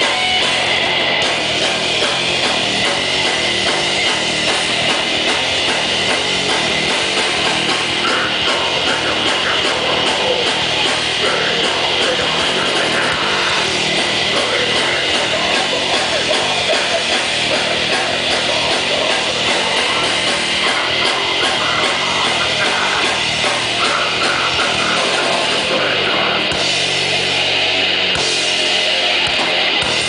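Heavy metal band playing live: electric guitar, bass guitar and drum kit, loud and dense, with a vocalist singing into a microphone.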